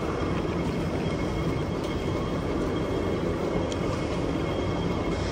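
Steady mechanical rumble of a moving walkway running underfoot, with a faint steady high whine above it.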